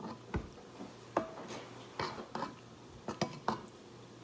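Kitchen utensils knocking and clinking against a plate: about eight sharp, irregularly spaced knocks.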